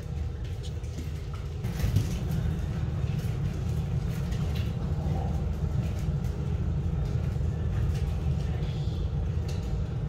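Steady low rumble of room noise, with scattered light clicks and taps from Rottweiler puppies moving about on a tiled floor and nudging a metal food bowl.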